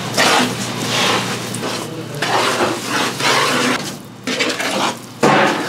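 A spatula scraping and stirring a thick chili-seasoning mixture around a nonstick wok, in repeated strokes with a brief pause about four seconds in.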